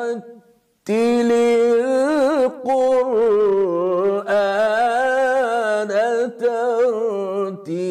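A man's voice chanting an unaccompanied melismatic melody in Arabic style, the pitch bending and trilling through short held phrases with brief breaks between them. It begins after a short silence about a second in.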